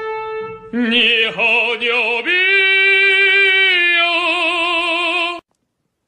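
High operatic singing voice with strong vibrato: a short note, a quick wavering run, then one long held note that cuts off suddenly about five seconds in.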